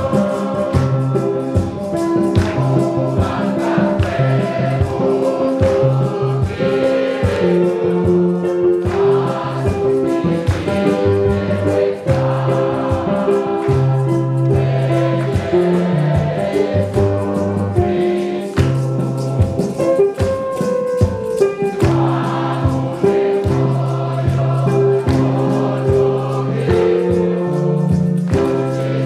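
Church choir and congregation singing a gospel hymn in Luganda, with hand-clapping and a low bass line underneath.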